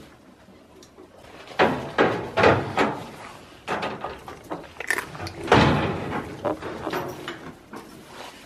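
Irregular loud bumps and scuffing close to the microphone, starting about a second and a half in: goats pushing their noses and faces against the camera.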